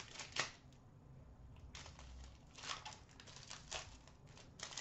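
Upper Deck Series 1 hockey card pack wrappers crinkling and being torn open, heard as short, scattered rustles.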